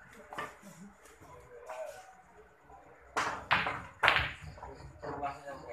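A shot on a pool table: three sharp clicks of cue and balls within about a second, the last the loudest.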